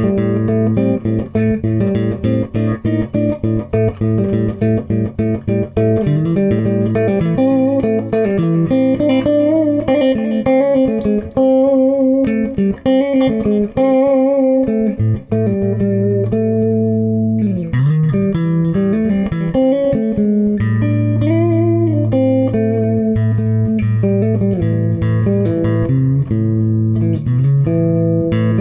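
Improvised guitar instrumental: melodic notes with bends and wavering pitch over held low bass notes.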